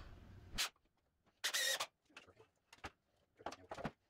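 Cordless drill driving screws into pine 2x4 framing. The motor runs and stops sharply about half a second in, a short whirring burst follows about a second and a half in, then there are several light clicks and knocks from handling the drill and wood.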